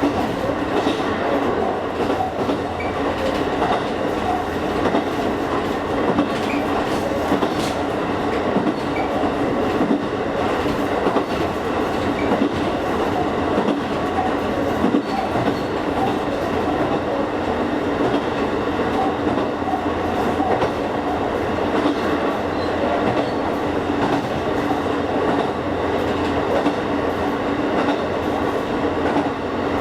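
Kakogawa Line train running along the track, heard from inside the car: a steady running rumble with a low hum and the clickety-clack of the wheels over rail joints.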